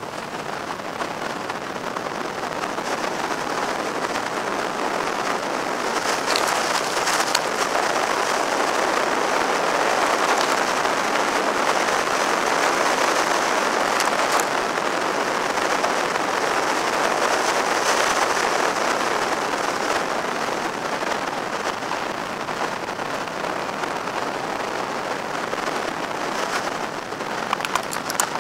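Steady rush of wind and road noise over a roof-mounted camera on a Mazda RX-7 (FD3S) driven at speed, growing louder through the middle and easing off later, with a few brief clicks.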